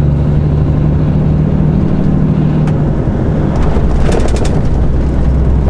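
Lorry's diesel engine droning steadily under road noise, heard from inside the cab, with a brief patch of light clicking about four seconds in.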